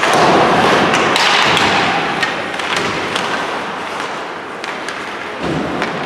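Ice hockey play in an arena: skates scraping the ice and sticks clicking and clacking on the puck and ice, with a dull thud about five and a half seconds in.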